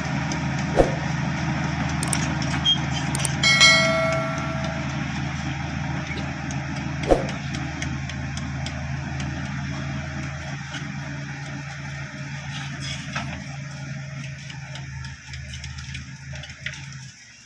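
Bulldozer's diesel engine running steadily and slowly fading away. A brief high-pitched tone sounds about four seconds in, and there are two sharp clicks. The engine sound drops off abruptly near the end.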